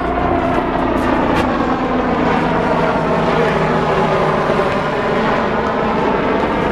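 Low-flying aircraft passing overhead, a loud steady engine sound whose pitch slowly bends over several seconds. A couple of faint sharp smacks sound about a second in.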